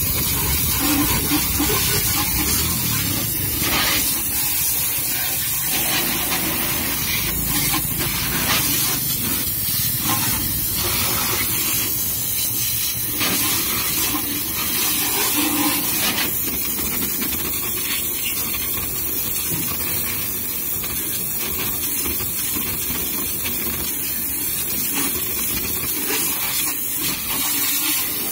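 Pressure washer jet hissing steadily as it sprays a car's wheel and lower body panels, water splattering off the surfaces.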